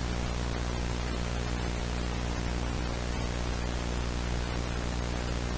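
Steady static hiss over a low electrical hum, like a dead broadcast signal.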